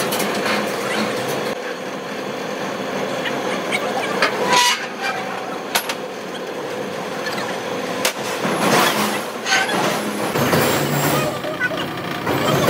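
A machine running steadily with a low hum, broken by a few sharp knocks.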